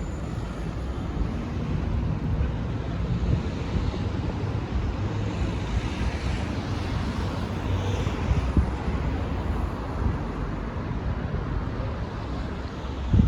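Steady city street traffic noise with wind rumbling on the microphone; a passing vehicle swells and fades in the middle, and a short knock sounds near the end.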